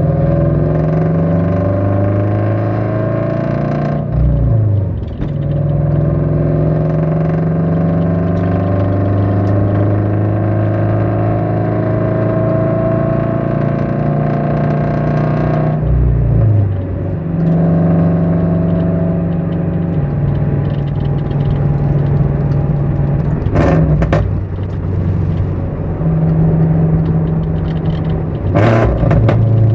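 Toyota GR86's flat-four engine, breathing through an unequal-length header and HKS cat-back exhaust, running loud and steady. Its note climbs slowly, then dips and drops in pitch about 4 seconds and 16 seconds in. Near the end come two sharp cracks.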